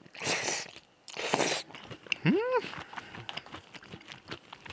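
Two slurps of cold squid mulhoe broth drunk from the lip of a plastic container, then a short vocal sound that rises and falls in pitch a little over two seconds in, followed by soft chewing.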